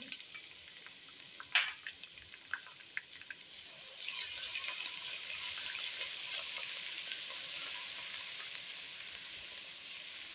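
Sliced onions and ginger-garlic paste frying in hot oil, a crackling sizzle with scattered pops and one sharper pop about one and a half seconds in. The sizzle grows louder and steadier about four seconds in, as a silicone spatula stirs the paste into the oil.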